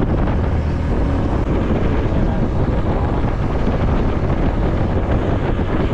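Steady, loud wind noise buffeting the microphone of a motorcycle under way, with the bike's running noise low underneath.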